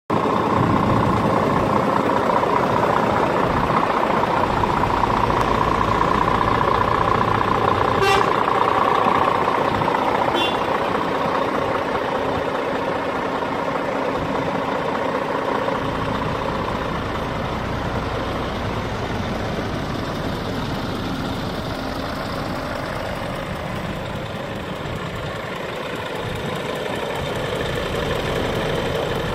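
Scania R490 truck's straight-six diesel engine idling steadily. A steady higher hum is louder over the first ten seconds, and two brief clicks come at about eight and ten seconds in.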